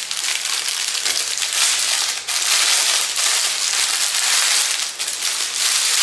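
Clear plastic poly bag crinkling steadily as hands pull it open and draw a pair of shorts out of it.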